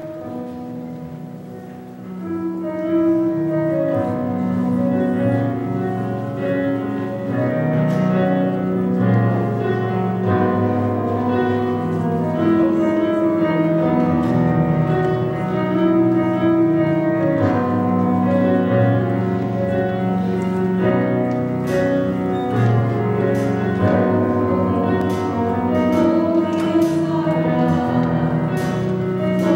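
Slow instrumental background music of held chords, swelling louder about two seconds in, with light taps joining in over the last several seconds.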